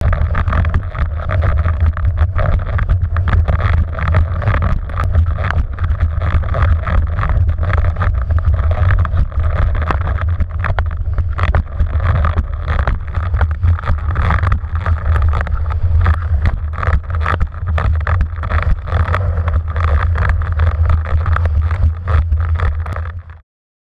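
Wind buffeting the microphone of a mast-mounted action camera on a windsurfer sailing at speed, a heavy low rumble with constant gusty spikes, mixed with the rush of water spray off the board. It cuts off abruptly just before the end.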